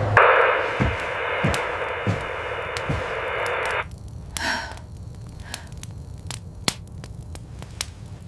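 A steady hiss that starts at once and cuts off suddenly after nearly four seconds, with a few dull thumps under it, followed by scattered faint clicks and a soft breath-like sound.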